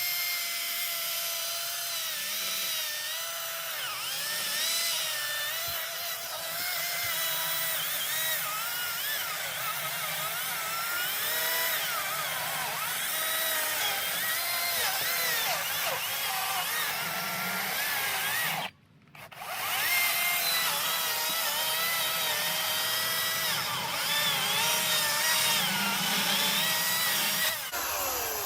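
Ryobi 40V HP brushless cordless chainsaw running and cutting through a log, its electric motor whine dipping and rising in pitch as the load changes. The sound breaks off for a moment about two-thirds of the way through, then carries on.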